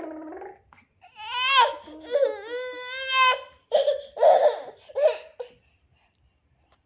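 A toddler's high-pitched squeals with rising and falling pitch and one long held note, then a run of short bursts of laughter that stops about a second and a half before the end.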